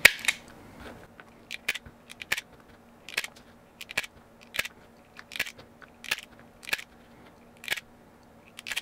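A hand wire tool snipping thin LED cable, with a short sharp snip roughly every 0.7 s, about a dozen in all, over a faint steady hum.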